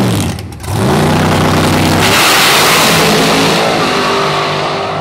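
A 1967 Camaro drag race car's engine at full throttle, launching off the line and accelerating away down the strip. The engine note dips briefly about half a second in, then climbs in pitch and fades as the car pulls away.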